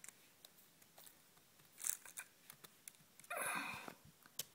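Faint, scattered clicks of a MacBook Air's keyboard and trackpad in use. A short rustling hiss comes about three and a half seconds in, with a softer one near two seconds.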